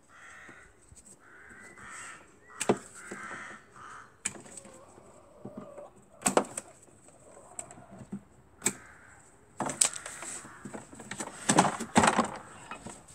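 Crows cawing repeatedly in the first few seconds over knocks and rattles from the parts of a stripped-down Hammond organ being handled. About ten seconds in comes a burst of louder clattering as a large panel is pulled out of the cabinet.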